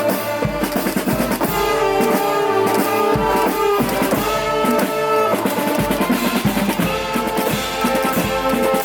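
Brass-and-percussion street band playing: horns holding notes over a steady beat of snare and bass drum.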